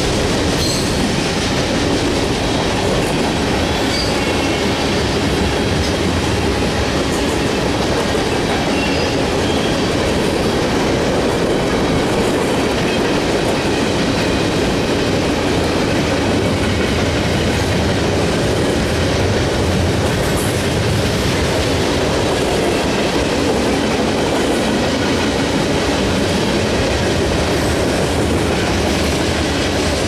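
Freight cars (tank cars and covered hoppers) rolling past close by: a steady, loud rumble and clatter of steel wheels on the rails, with a few faint, brief wheel squeals.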